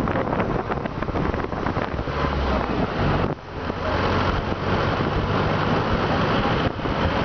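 Wind buffeting the microphone from a moving vehicle, over a low rumble of engine and road noise. The rush drops briefly about three seconds in.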